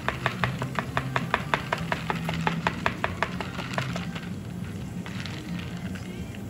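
Metal spoon stirring ice cubes in a plastic cup of iced drink: quick, even clinking about five times a second that stops about four seconds in.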